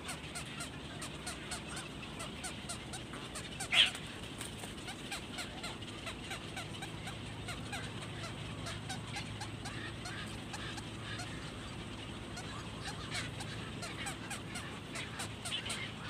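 Many birds calling at a nesting colony: a steady din of short calls, with one loud, harsh call about four seconds in.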